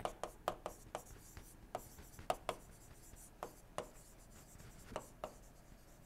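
Faint, irregular taps and scratches of a stylus on a tablet screen as words are handwritten. The taps thin out over the last couple of seconds.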